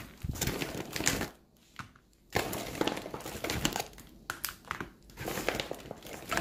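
Plastic jars of acrylic nail powder being pulled out of a kit and set down one after another: crinkling of packaging and light clacks of the jars, with a short pause about a second and a half in.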